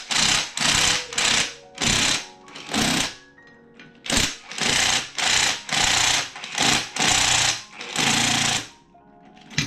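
Cordless impact wrench hammering in short repeated bursts, about two a second, on a seized bolt that it cannot break loose. There is a pause about three seconds in.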